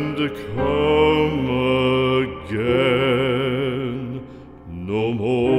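Slow background music: long held notes with a wide vibrato over a low sustained drone, with a short lull about four seconds in.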